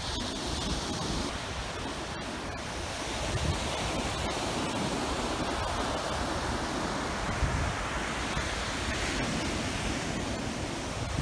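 Ocean surf breaking and washing up the beach: a steady rush of noise.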